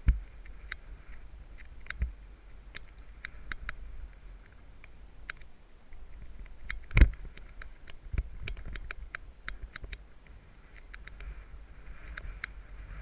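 Mountain bike ridden over a rough dirt trail: irregular sharp clicks and rattles over a steady low rumble, with one heavy knock of a jolt about seven seconds in.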